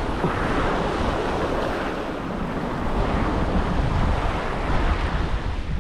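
Wind buffeting the microphone over the steady wash of waves against a jetty.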